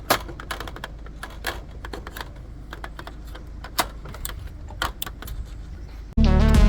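Irregular light clicks and taps of small parts being handled while a blackened PL compact fluorescent lamp is swapped in a streetlight lantern, over a low steady rumble. Loud music starts near the end.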